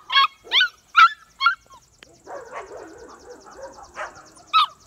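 Seven-week-old Pyredoodle puppies yipping in play: four short, high-pitched yips in the first second and a half, a softer rough stretch in the middle, then two more yips near the end.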